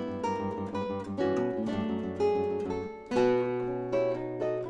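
Background music: acoustic guitar playing a run of plucked notes over a low sustained bass.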